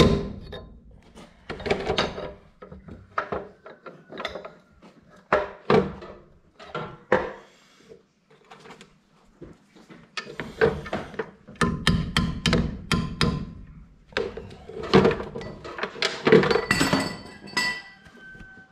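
Metal struck and clanking during gearbox work: irregular hammer blows and knocks on metal parts, many leaving a short ringing tone, with a brief pause partway through.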